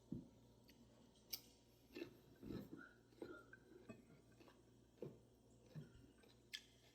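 Faint open-mouthed chewing: irregular wet smacks and clicks of a mouth working through food.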